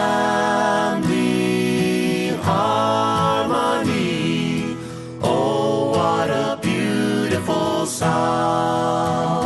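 Music: a song with several voices singing in harmony over a steady accompaniment.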